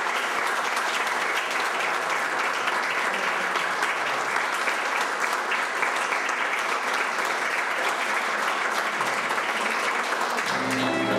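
Audience applauding steadily, a dense patter of many hands clapping; right at the end a violin starts to play over it.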